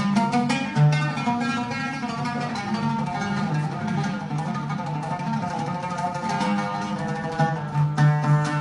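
Instrumental passage of Iraqi music: a plucked string instrument playing quick runs of notes over a sustained low drone, with no singing.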